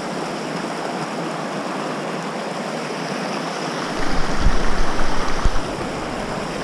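Shallow mountain river rushing and splashing over rocks in a steady wash of water noise. About four seconds in, a low rumble on the microphone rises and lasts nearly two seconds before dropping away.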